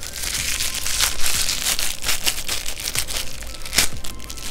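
Clear plastic wrapping crinkling and crackling in the hands as it is pulled off a gold-coloured metal spoon, with a few sharper crackles among the rustling.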